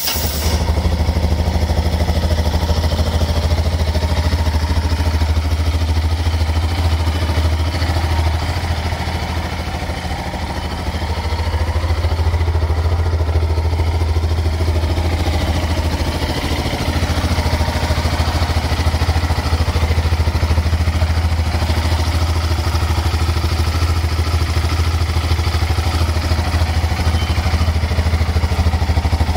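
2006 Yamaha XT 660 R's single-cylinder four-stroke engine idling steadily after being started, with no revving. The level dips briefly about ten seconds in.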